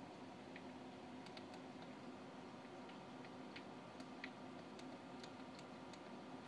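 Faint, irregular small clicks, one to three a second, over a steady low hum.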